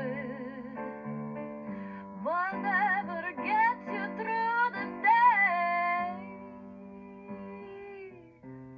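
Music from a Mindscope animated black cat Halloween toy: a woman's voice singing held notes with wide vibrato over a soft plucked and keyboard backing, fading out near the end.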